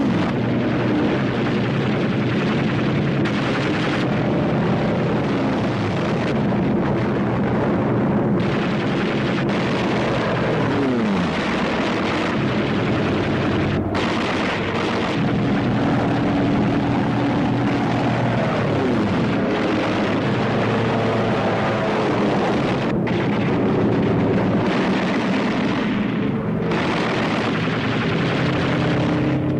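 Steady drone of B-17 bombers' radial engines with machine-gun fire. Twice a fighter passes with its engine pitch falling, about ten seconds in and again around eighteen seconds.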